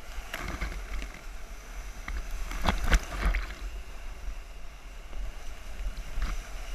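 Whitewater rapids churning and splashing right around the camera as a raft flips, with a deep rumble of water against the microphone. A few sharp splashes stand out about three seconds in.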